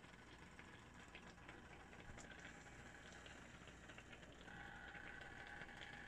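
Faint simmering of coconut milk around taro-leaf pinangat parcels in a frying pan, with tiny bubbles popping in quick, irregular ticks. A faint steady tone joins about four and a half seconds in.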